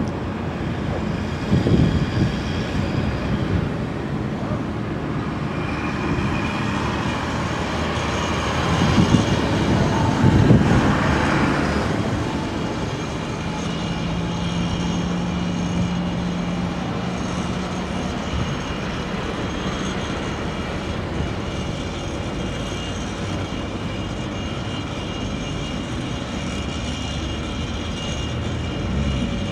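Canal barge's diesel engine running steadily as the barge moves slowly through the lock gate. A low rumble swells louder about two seconds in and again around ten seconds in, and a steady hum holds for a few seconds in the middle.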